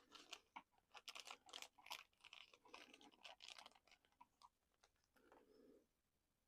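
Faint, irregular small clicks and taps of screws and hard plastic parts being handled on a small RC truck, thinning out after about four seconds.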